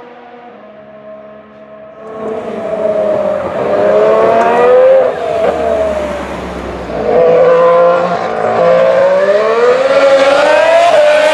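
Formula 1 car's 1.6-litre V6 turbo hybrid engine at racing speed, its pitch climbing and falling through gear changes. Faint at first, it gets loud about two seconds in, dips, and surges again about seven seconds in.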